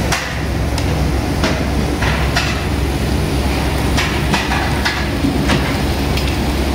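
A series of about ten irregular sharp knocks and clicks over a steady low rumble.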